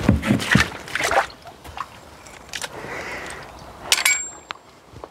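Knocks, thumps and scuffs of someone moving about in a foundation trench, loudest in the first second or so. About four seconds in comes a short metallic clatter with a faint ring as a steel skeleton cartridge gun is handled.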